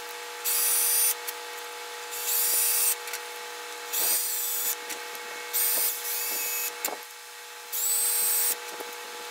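Ridgid cordless drill driving screws into OSB board: five short bursts of motor whine, each rising in pitch and then holding for under a second, with light clicks of screws being handled in between. A faint steady hum runs underneath.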